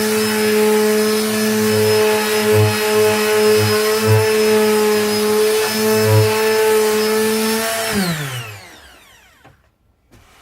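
Bosch PSM 100A 100 W electric detail sander running steadily with a hum while sanding a wooden tabletop, quite mellow for a sander. About eight seconds in it is switched off and winds down, its pitch falling away.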